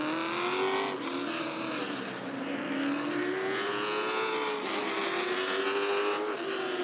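Late model stock cars' V8 engines running together at caution pace. Several engine notes overlap, each slowly rising and falling in pitch as the cars pass.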